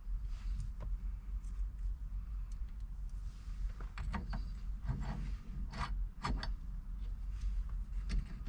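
Small hex bolts being handled and started into a steering-wheel quick-release hub with a 3 mm T-handle Allen key: scattered light clicks and metal rattles, thickest about halfway through, over a steady low hum.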